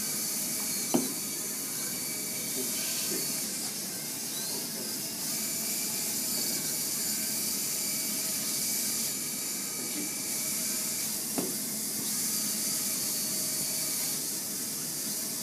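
Steady hiss with two sharp knocks, one about a second in and another about eleven seconds later, from small Bioloid robots handling cans on a tabletop arena.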